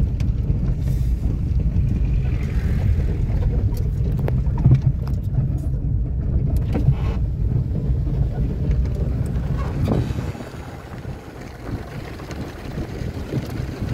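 Low rumble of a car driving along a rough dirt track, heard from inside the cabin, with a few faint knocks. The rumble drops away sharply about ten seconds in.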